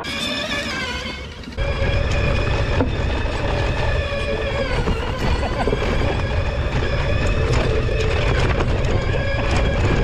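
Wind rumbling on the microphone of a camera mounted on a moving Outrider Coyote electric ATV, starting suddenly about a second and a half in. A steady high whine of several held tones runs over it.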